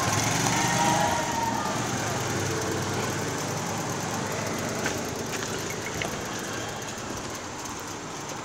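A motor vehicle's engine running and slowly fading away, with a few faint clicks midway.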